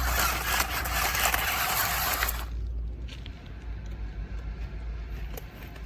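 Radio-controlled toy construction vehicle's motor and gears running hard under a heavy load, then cutting out about two and a half seconds in, leaving only a low steady hum.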